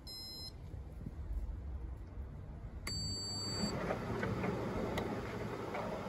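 Hoover Dynamic Next condenser tumble dryer's control panel beeping as the Start/Pause button is pressed with the child lock off: a short beep at the start and a longer one about three seconds in. Right after the second beep the dryer starts, and a low hum and a steady running noise come in and get louder.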